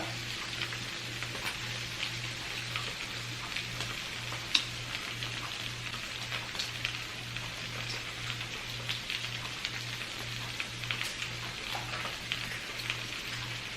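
Food sizzling in a hot skillet: a steady hiss with small crackles and pops, one sharper pop about four and a half seconds in, over a low hum.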